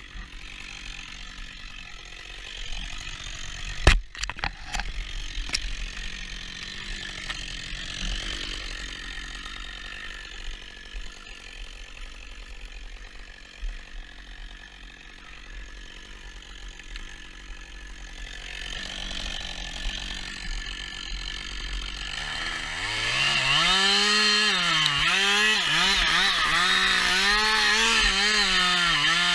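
A Husqvarna 560XPG two-stroke chainsaw starts up about 22 seconds in and is revved up and down repeatedly, its pitch rising and falling. Before that there are only lower-level handling sounds, with one sharp knock about four seconds in.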